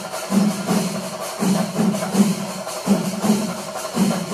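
Rhythmic festival percussion music: drum strokes in quick groups of about four, broken by short pauses about every second and a half, with bright metallic clashes layered over them.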